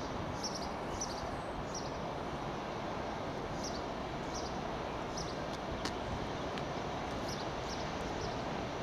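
Small birds chirping again and again in short, high calls over a steady outdoor rumble.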